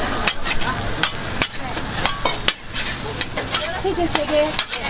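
Eggs and ham frying on a flat steel griddle, a steady sizzle, with sharp, irregular clicks and scrapes of a metal spatula against the griddle and the egg ring molds as eggs are lifted and flipped.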